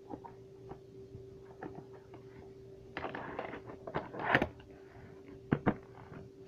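Plastic VHS clamshell case being handled and opened, with scattered light clicks, a scraping rustle about three seconds in, a louder clatter a second later, and two sharp plastic clicks near the end. A faint steady hum runs underneath.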